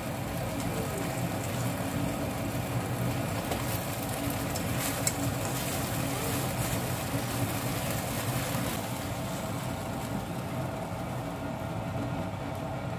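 Vegetables in a sweet-and-sour sauce stir-frying in a wok, a steady sizzle under a constant mechanical hum.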